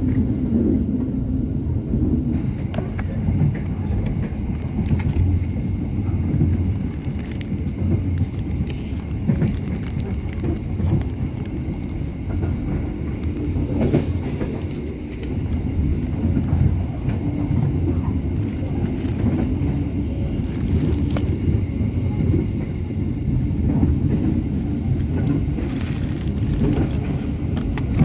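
Steady low rumble of a passenger train running, heard from inside the coach, with occasional faint clicks and rattles.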